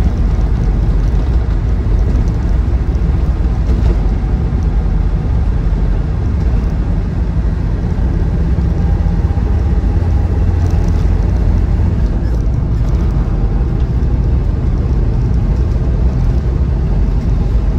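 Cab noise of a 2003 Land Rover Defender 90 Td5 on the move: the five-cylinder turbodiesel engine running under way, with tyre and road noise, a steady low rumble.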